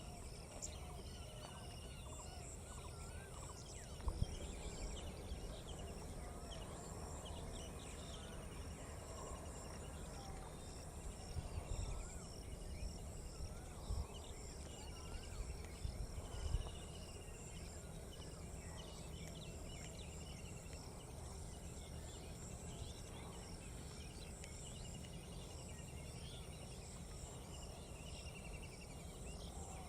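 Outdoor ambience with a short trilled call repeating every few seconds over a steady high chatter of insects or small birds. A few low thumps come in the first half.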